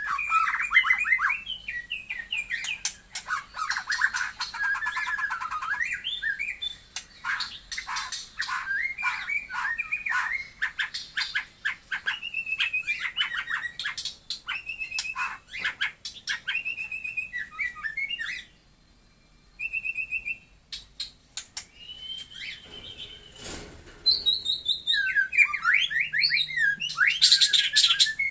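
Songbird of the kind sold as 'murai Taiwan' singing a loud, varied song of quick whistled phrases and chattering trills, with a short pause about two-thirds of the way through.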